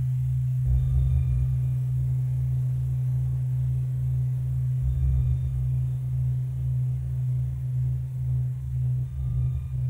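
Electronic hypnosis tones: a steady low drone with a deeper tone pulsing on and off at an even rate, and a low static hiss that comes in under a second in.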